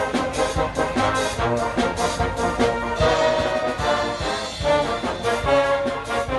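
Brass-heavy music with a steady beat.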